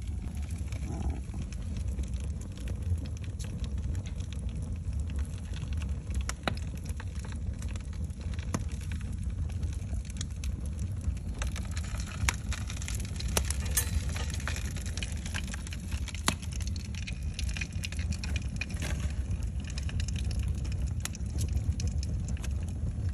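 Wood fire with a cardboard cereal box burning in a fireplace: crackling with frequent sharp pops over a steady low rumble.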